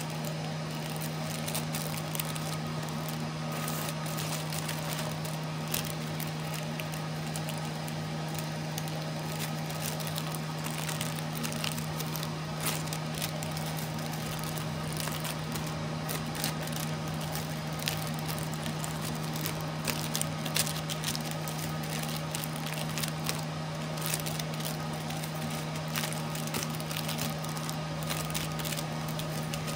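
Clear plastic cookie bags crinkling and crackling in small irregular bursts as chocolate cookies are bagged and closed by hand, over a steady low hum.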